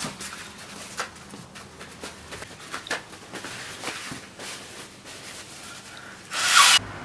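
Faint rustling and small clicks, then near the end one hard blow of the nose into a tissue, about half a second long and the loudest sound.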